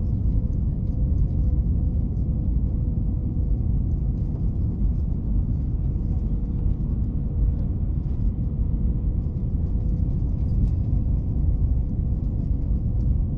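Airbus A321 cabin noise on final approach, heard inside the cabin over the wing: a steady low rumble of engines and airflow with a faint steady hum running through it.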